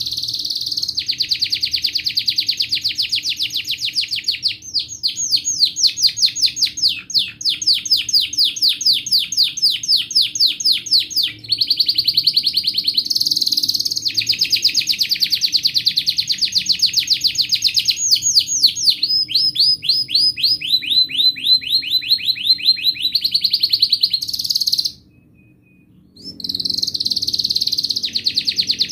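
White domestic canary singing a long, almost unbroken song made of rapid trills, fast runs of repeated notes that change speed and pitch every few seconds. It breaks off for about a second and a half near the end, then starts again.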